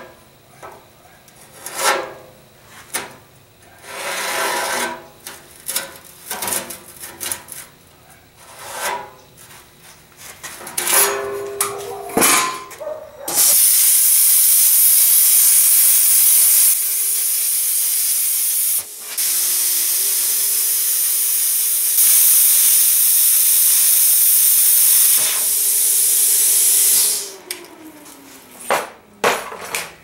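Scraping and knocking as a metal band is worked around a steel water-heater tank to mark a cut line. About 13 seconds in, a power cut-off tool, most likely an angle grinder with a cut-off wheel, starts cutting the tank's steel shell to length with a loud steady hiss. It dips briefly once midway and winds down near the end.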